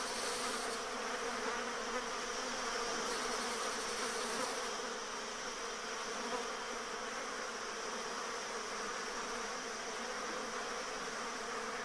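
Rainforest insects: a steady buzzing drone that keeps going without a break.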